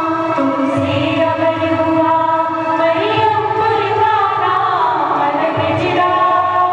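A choir singing a slow song, holding long notes and moving between them in steps.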